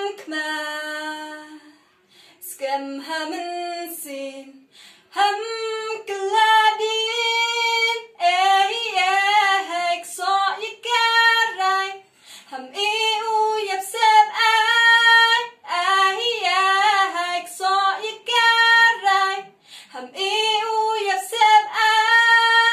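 A solo female voice singing unaccompanied in a high register, in phrases broken by short pauses for breath, with a long held note near the end.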